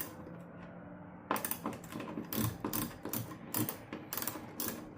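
Socket ratchet with a 10 mm socket clicking in quick back-and-forth strokes, about three to four clicks a second, starting a little over a second in. It is backing out a tail-light bolt that is already loose.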